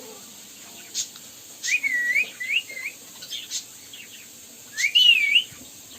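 Ringneck parakeet whistling: a run of wavering whistles about two seconds in and a louder one near the end, with short sharp chirps in between.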